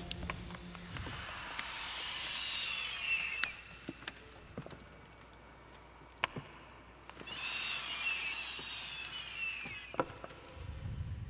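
Ambient electronic outro of the soundtrack: two long sweeping falling whistle-like glides, a few seconds apart, over scattered clicks and crackles, with a low rumble near the end.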